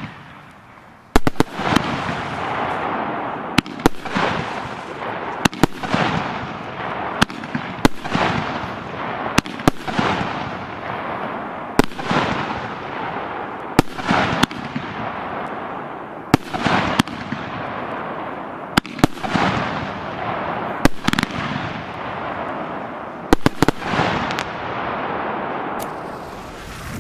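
A 16-shot, 50 mm consumer firework battery (Piromax Fireball XXL) firing its shots one after another, about one every two seconds. Each shot gives a sharp launch crack and burst, followed by a spray of crackling stars that fades before the next shot.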